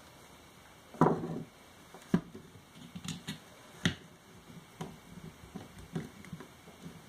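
Scattered light clicks and knocks from wood and tools being handled, with a short louder clatter about a second in.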